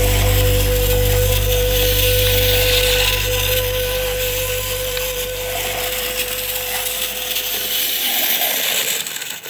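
Wind-up Capsule Plarail toy train running on plastic track: the steady whirring rattle of its clockwork motor and wheels, with background music fading out under it. The sound cuts off suddenly near the end.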